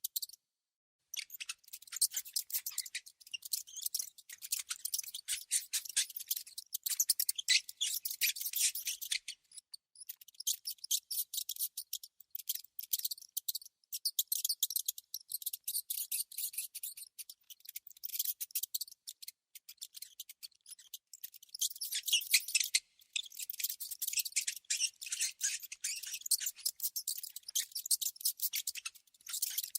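Rat or mouse sounds: a rapid, high-pitched stream of tiny clicks and squeaks, coming in runs of several seconds with short pauses.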